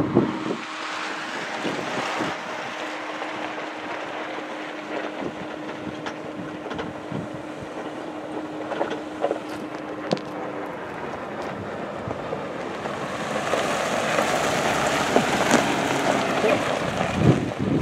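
Wind buffeting the microphone over the sound of a Jeep Wrangler driving up a gravel track. It grows louder over the last few seconds as the Jeep pulls in close.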